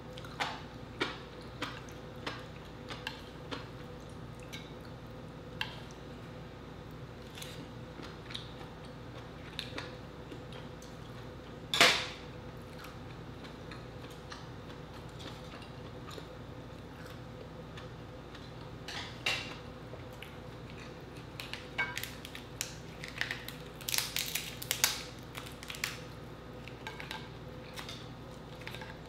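Mukbang eating sounds: chopsticks tapping on a plate and a wooden rice bowl amid chewing, with one loud sharp sound about twelve seconds in. Near the end comes a dense run of snapping and cracking as a king crab leg's shell is pulled apart by hand.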